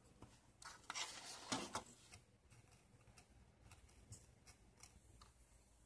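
Faint scratching of a pencil marking a line on a thin sheet, strongest about a second in. Then light ticks and scrapes of a hobby knife cutting the sheet on a cutting mat.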